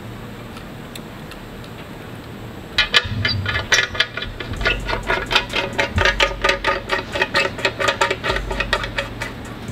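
Background music with a fast, even ticking beat over held notes and a low bass line that changes note every second or two. It comes in about three seconds in, over faint room tone.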